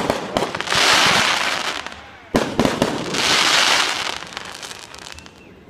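Consumer fireworks going off: a sharp bang, then a hissing, crackling spray of sparks lasting about a second and a half. A second bang comes about two and a half seconds in, with another crackling spray that fades out.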